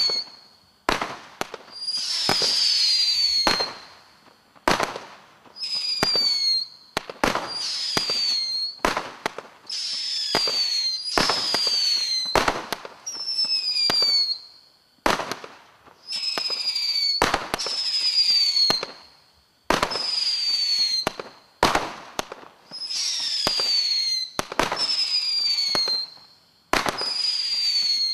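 Global Fireworks Rain of Terror 90-shot barrage cake firing shot after shot, about one every one and a half to two seconds. Each shot is a sharp report, many of them followed by a whistle falling in pitch over about a second and a hissing trail.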